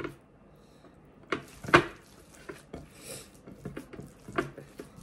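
Kitchen dishes and utensils clattering: a handful of scattered knocks and clinks, the loudest just under two seconds in, with a brief hiss around three seconds.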